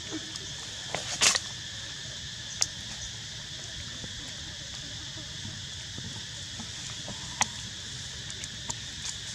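Steady chorus of insects droning in the background, with a few sharp clicks on top, the loudest about a second in.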